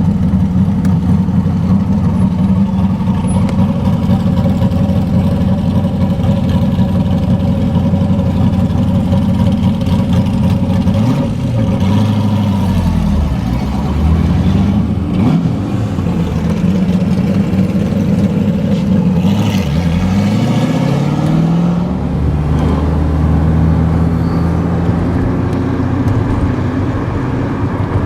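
Ultima GTR's V8 running at a steady idle, then revved up and back down a few times in the middle before settling to a steady run again.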